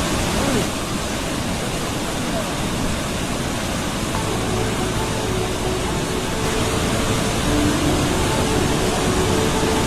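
Steady rushing noise with faint voices underneath.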